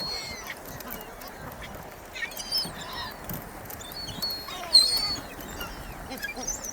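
A flock of birds calling over one another while being fed bread: many short, high squawks and chirps, with one louder call about three-quarters of the way through.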